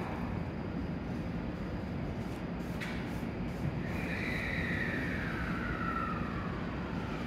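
Steady low rumble of a 683-series electric limited express train standing at a station platform. There is a single click about three seconds in, and a high whine that slides down in pitch from about four seconds to six and a half seconds.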